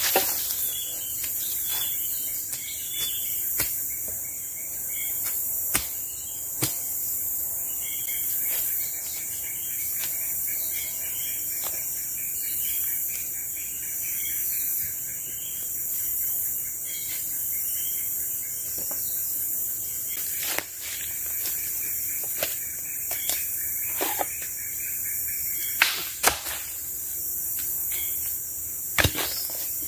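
Steady, high-pitched buzzing of forest insects, with scattered sharp knocks and chops of a machete and wooden poles, the loudest a few seconds before the end.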